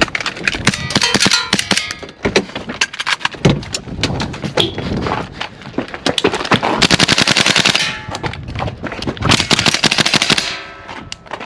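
Gas blowback airsoft guns firing: a run of separate sharp shots and cycling clacks, then two rapid full-auto strings, one a little past the middle and one near the end.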